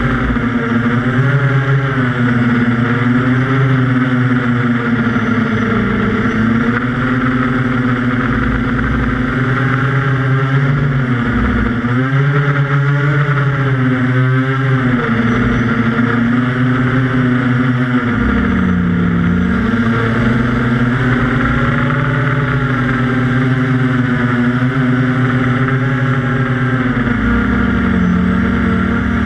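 QAV400 quadcopter's electric motors and propellers, heard from on board, making a continuous buzzing whine of several tones together. The pitch rises and falls with the throttle, dipping briefly several times.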